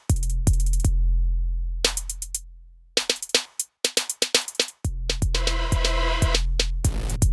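Electronic music with drum-machine beats: punchy kicks with a falling pitch over a deep sustained bass, hi-hat and snare hits, and a synth chord swelling in the middle.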